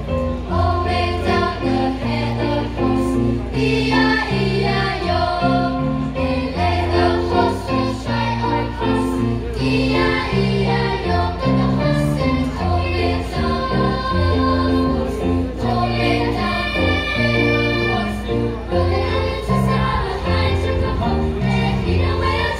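Children's choir singing in several parts over a keyboard accompaniment, heard through the stage PA, swelling into fuller, brighter passages a few times.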